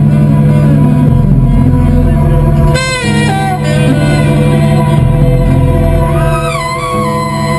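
Live saxophone playing over electronic accompaniment with a heavy, pulsing bass line. Pitches slide about three seconds in and again near the end.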